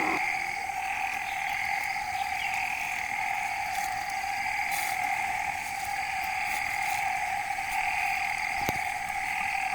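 A steady chorus of calling animals, a continuous drone at two steady pitches, one lower and one higher. There is a single short click near the end.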